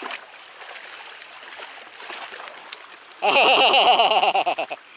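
Seawater lapping and splashing against the rocks at the foot of a seawall. About three seconds in comes a loud wavering, voice-like tone that lasts about a second and a half.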